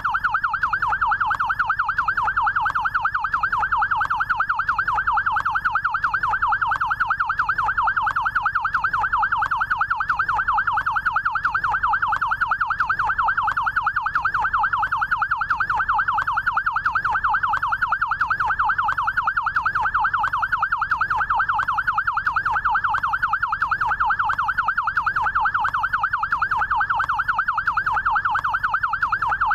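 Electronic yelp siren of a SAMU rescue motorcycle: a fast, even warble sweeping up and down in pitch, repeating without a break.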